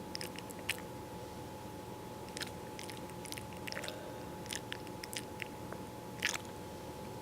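A sleeping pet's mouth noises: irregular soft clicks and smacks like chewing or lip-licking, the loudest one near the end, over a faint steady hum.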